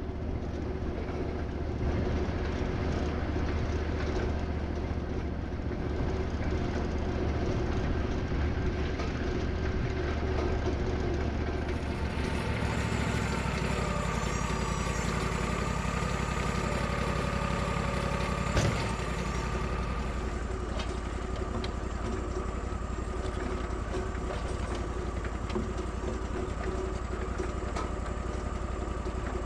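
Sawmill engine running steadily, with a thin whine over it for several seconds in the middle and a single sharp knock about two-thirds of the way through.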